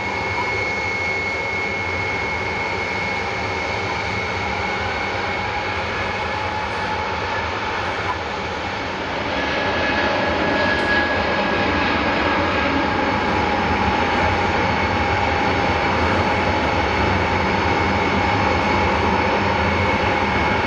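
Tupolev Tu-154M's three rear-mounted Soloviev D-30KU-154 turbofans running at taxi power: a steady jet roar with high whining tones. It grows louder about nine seconds in, as the jet swings round.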